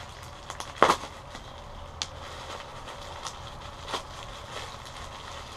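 Bubble wrap being pulled open by hand: plastic crinkling with a few sharp crackles, the loudest about a second in.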